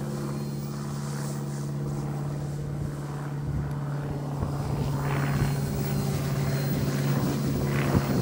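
OMP Hobby M1 mini RC helicopter in flight, its direct-drive brushless main and tail rotors giving a steady, even-pitched hum at the normal head speed of stabilised mode, below idle-up speed. It grows a little louder toward the end.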